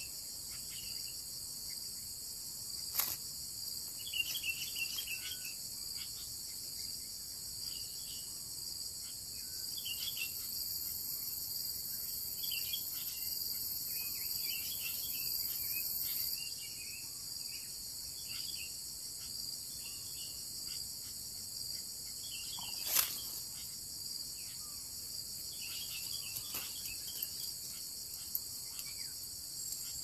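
Steady high-pitched chorus of chirping insects, with scattered faint short chirps below it and two sharp clicks, one about three seconds in and one near the twenty-three second mark.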